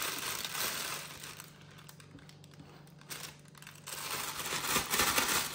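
Disposable plastic piping bag crinkling and rustling as it is handled and stuffing mixture is added, in two spells with a quieter pause in between.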